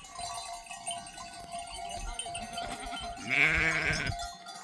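Flock of sheep bleating faintly, with one loud, close bleat lasting almost a second a little past the middle.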